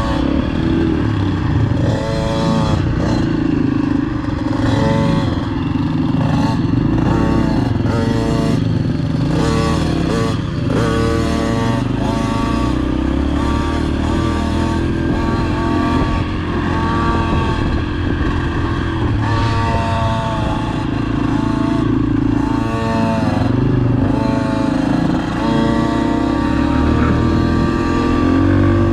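Dirt bike engine being ridden around a motocross track, revving up in short rising climbs and easing off again and again, over a steady low rumble.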